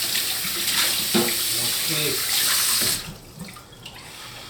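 Water running from a kitchen tap, shut off abruptly about three seconds in.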